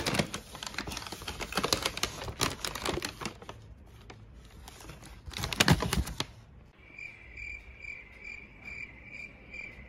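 Rustling and crinkling of a printed food-delivery bag being handled and opened, in bursts over the first six seconds. In the second half a faint, high chirp repeats about three times a second.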